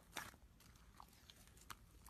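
Iceberg slime's hardened top crust crackling faintly as it is handled: a short crunchy crackle a fraction of a second in, then a couple of fainter ticks.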